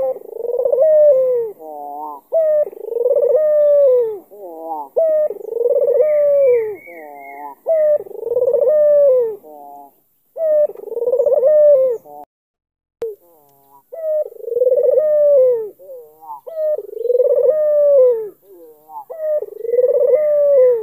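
Albino ringneck dove (puter) cooing: the same long, slightly falling coo phrase repeated about every two and a half seconds, with a short break about twelve seconds in.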